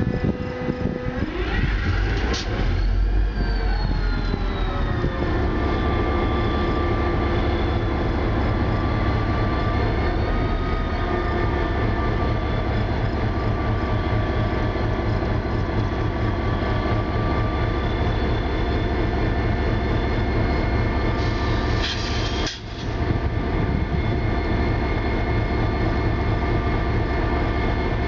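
Metra EMD F40PH diesel locomotive's engine catching about a second in, revving up with a rising whine, then settling within a few seconds into a steady idle. A short hiss, then a brief dip, about three-quarters of the way through.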